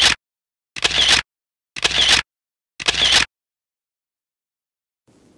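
An edited sound effect: the same short, noisy burst repeated about once a second, three times after one just ending, then it stops a little past three seconds in. Faint low background noise comes in near the end.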